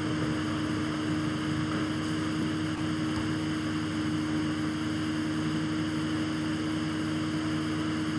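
Steady hiss with a constant low electrical hum, unchanging throughout: background room tone with no other event.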